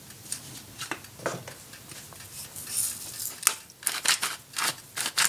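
Salt grinder being twisted, its mill grinding salt in a quick run of sharp clicks that starts about three and a half seconds in, after a few lighter clicks.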